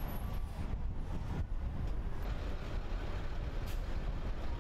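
City street traffic noise: a steady low rumble of vehicles on the road.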